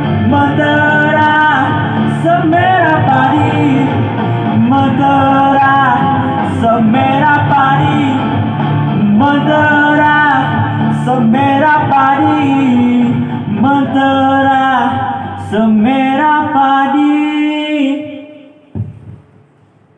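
Background music with a melody carried over a steady low accompaniment. It fades out about two seconds before the end.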